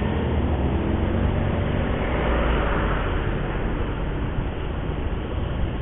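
Steady road noise from a vehicle moving through traffic, with a low engine hum underneath; the noise swells briefly a little over two seconds in.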